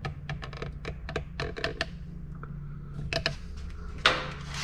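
Irregular light clicks and metallic taps of parts and tools being handled, in quick clusters, with a louder knock about four seconds in, over a steady low hum.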